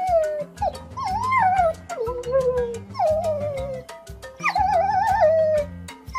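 A cartoon dog's voice: about half a dozen sliding, wavering whines and howls in a row, over background music with a steady bass line.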